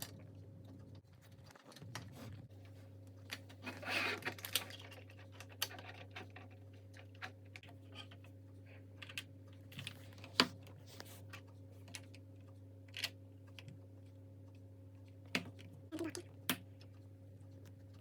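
Plastic LEGO bricks clicking and rattling as they are handled and pressed together, in irregular light clicks with a rustle about four seconds in and one sharper click midway. A steady low hum runs underneath.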